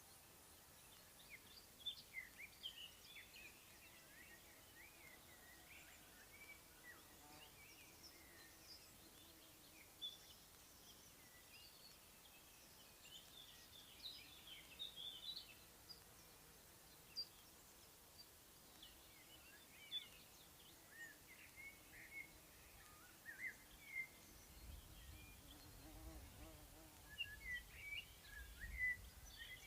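Faint spring birdsong: several small birds chirping and twittering in short phrases, with a low rumble joining in for the last few seconds.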